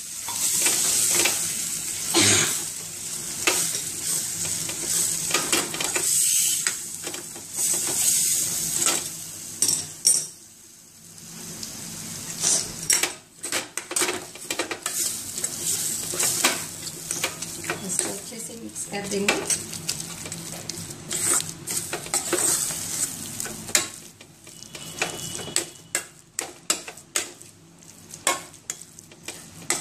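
A metal spoon stirring and mashing boiled potatoes into a spiced vegetable masala frying in a stainless steel pan: a steady sizzle under repeated scrapes and clinks of the spoon against the pan. In the last few seconds the sizzle drops and the clinks stand out.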